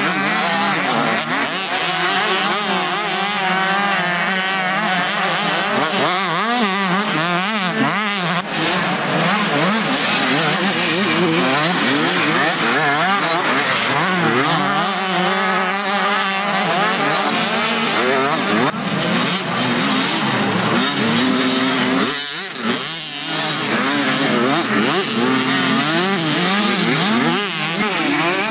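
Several motocross bikes racing, their engines revving up and down through the gears, with many rising and falling pitches overlapping.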